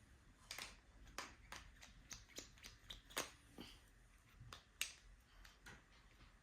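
Faint, irregular small clicks and taps, about a dozen of them, from plastic Play-doh toy pieces being handled; the sharpest comes just before the 5-second mark.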